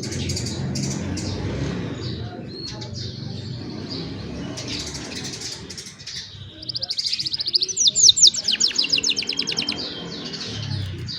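Young domestic canaries singing: scattered chirps, then about two-thirds of the way in a loud, fast trill of rapidly repeated falling notes lasting a few seconds. A low steady rumble runs underneath.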